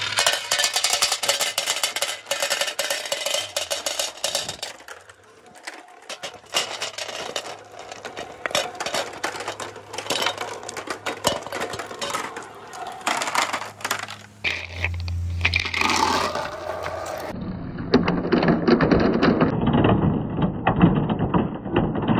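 Mini billiard balls clicking and clattering as they roll down a wavy wooden track and along a plastic pipe, then a dense, louder rattle in the last few seconds as they pour off a chute into a plastic tub full of other balls.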